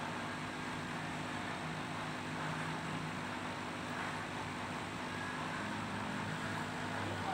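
A steady low machine hum over a soft hiss, unchanging in level.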